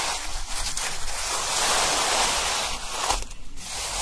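Steady rushing, hissing noise with no voice in it, dipping briefly about three seconds in.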